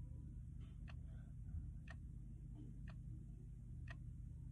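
A clock ticking quietly and evenly, about once a second, over a low steady room hum.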